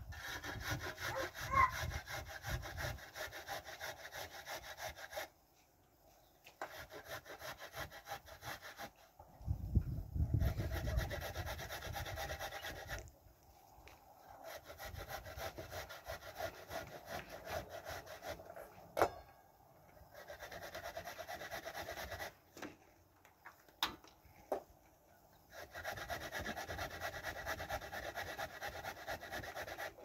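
A carrot grated on a flat hand-held metal grater: quick rasping strokes in bouts of a few seconds, with short pauses between them.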